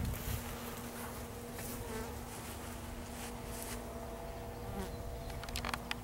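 Honey bees buzzing as they fly around the hive, a steady hum. A few light clicks near the end.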